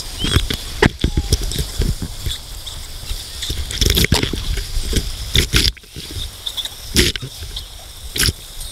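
Breaking surf churning and splashing around a waterproof camera held in the water, with several sharp splashes striking it at irregular moments. A woman laughs over the water noise.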